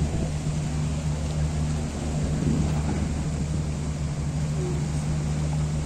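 A steady low engine drone over an even rushing background noise, with no change in pitch or level.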